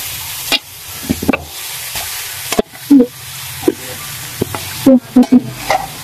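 Mashed potatoes being stirred into spices frying in oil in a metal pan: a steady sizzle, with a slotted metal spatula knocking and scraping against the pan about ten times.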